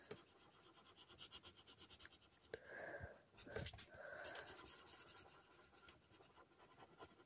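Felt-tip marker scratching faintly on paper, in short runs of quick back-and-forth strokes as it colours in a small area.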